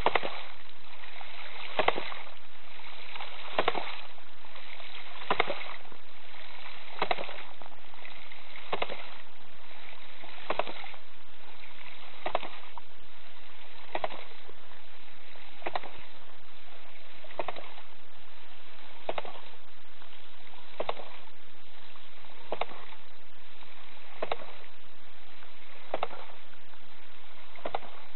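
A 2-inch hydraulic ram pump cycling: its waste valve, a modified 2-inch foot valve, clacks shut about every 1.7 seconds, with water rushing steadily between the strokes.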